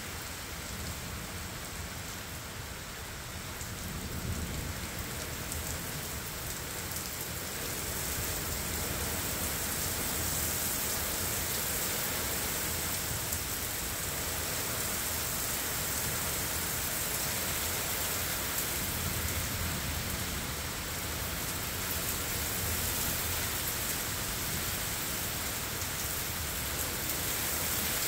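Torrential thunderstorm rain pouring steadily, growing heavier about a third of the way in, with low rumbles of thunder swelling up early and again past the middle.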